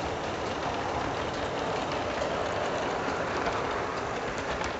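00 gauge model train running on its track: a steady whirring rumble with many small rapid clicks from the wheels on the rail.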